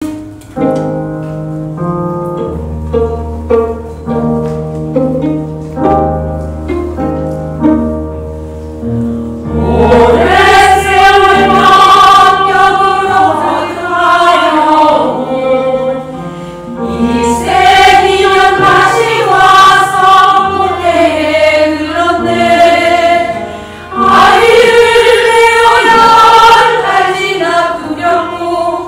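A women's choir singing a Korean Buddhist hymn over instrumental accompaniment. The accompaniment plays alone with a steady bass for about the first nine seconds, then the choir comes in loudly, dropping back briefly twice between phrases.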